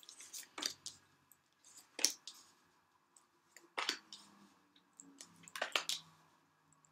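Tarot cards being dealt one at a time onto a table: four short, crisp snaps spaced one to two seconds apart as each card is drawn off the deck and laid down.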